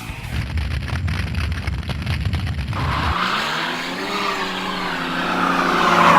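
Dubbed-in sound effect: a low rumble, then from about three seconds in a whooshing pass-by whose tone rises and falls, swelling to its loudest near the end.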